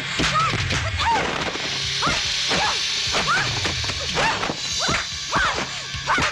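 Kung-fu fight sound effects: rapid punch and strike impacts, several a second, over backing music, with short rising-and-falling cries between the hits.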